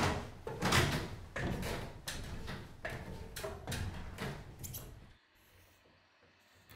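Footsteps over plywood floor boards, then climbing an aluminium ladder: a run of about a dozen thuds and clunks, roughly two a second, that stops about five seconds in. Faint room tone follows.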